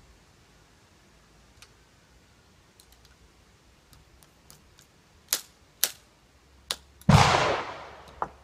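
A ramrod working a load down the barrel of a muzzle-loading underhammer pistol: a few light clicks, then three sharper knocks. About seven seconds in, a much louder gunshot cracks out and echoes for about a second.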